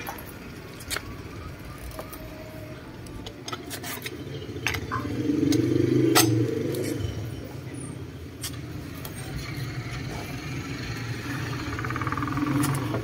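Sharp metal clicks and scrapes of a socket wrench and pipe extension being worked on a scooter's rear axle nut. A steady low vehicle engine hum runs underneath and swells loudest around the middle.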